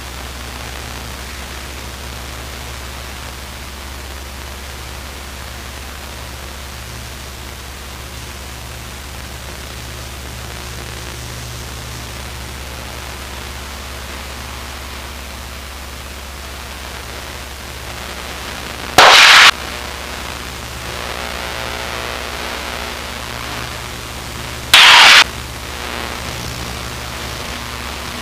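Steady hissing drone of a Luscombe 8A's Continental A65 engine in flight, heard through the headset intercom. Two short, loud bursts of radio static come about six seconds apart near the end.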